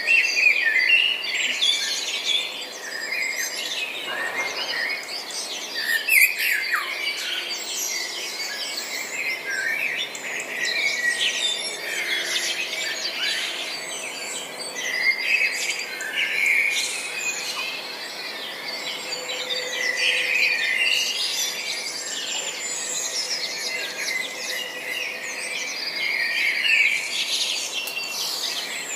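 Many birds chirping and singing at once, a dense overlapping chorus of short chirps and trills, over a faint background hiss.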